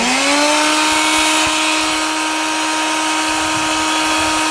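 Wet vac motor just switched on, its whine rising in pitch over the first second and then running steadily with a strong rush of air. It is blowing into the exhaust pipe to pressurize the exhaust system for a leak check.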